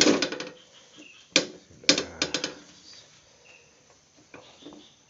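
Spatula scraping and knocking against a Teflon pan while stirring thick cooked durian paste. It comes in short clattering bursts over the first two and a half seconds, then goes quieter.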